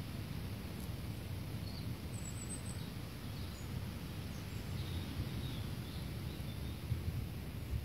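Steady low outdoor rumble with a few faint, short, high bird chirps now and then.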